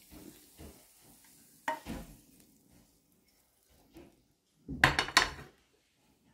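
Wooden spatula scraping and tapping fried green chillies out of a pan into a glass dish, with scattered soft knocks and a short clatter of several louder knocks near the end.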